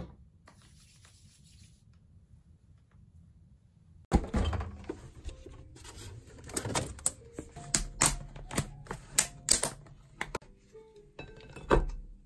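Kitchen handling sounds: a run of sharp clicks and knocks as food is taken from a fridge and a plastic container of pasta is handled over a ceramic bowl, with a heavier knock near the end. The sounds start about four seconds in.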